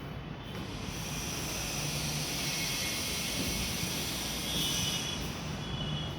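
Steady machine noise: a low hum under a hiss that swells about half a second in and eases near the end.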